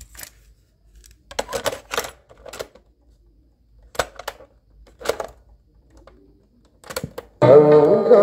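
Mechanical clicks and clunks of a Sony CFM-155S radio-cassette recorder's piano-key tape buttons being pressed and released. About seven seconds in, the cassette starts playing music.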